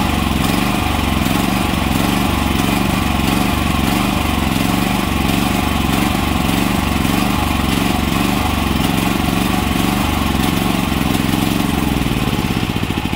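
Predator 8750 inverter generator's engine running steadily, then near the end starting to slow and falter as it burns the last fuel in its carburetor.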